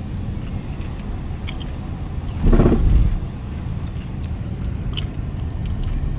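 A car driving, with a steady low road rumble and a brief loud burst of noise about two and a half seconds in.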